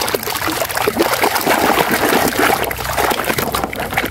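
Muddy, soapy water sloshing and splashing in a plastic basin as a hand scrubs a toy under the surface: a steady, irregular churning with crackling foam.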